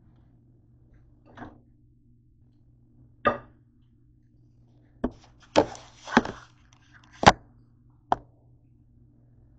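Kitchenware being handled: about seven sharp knocks and clatters, unevenly spaced, as a table knife and a ceramic plate strike each other and grilled bread slices are set down. A faint steady hum runs underneath.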